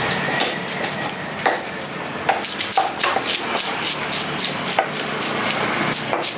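Large knife chopping and slicing giant trevally fillets on a thick wooden chopping block, with irregular sharp knocks of the blade striking the wood.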